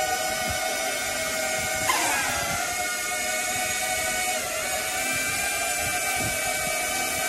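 Small quadrotor drone's electric motors and propellers whirring with a high, steady multi-tone whine. About two seconds in the pitch drops sharply, and it shifts again around four and a half seconds in, as the motor speeds change in flight.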